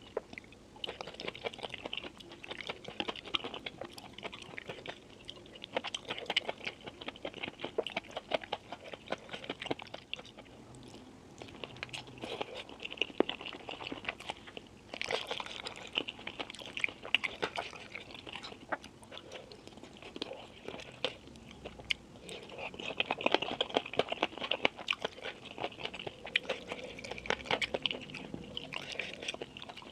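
Close-miked eating sounds: a person chewing and biting food with wet, irregular crunches and smacks, pausing briefly a few times.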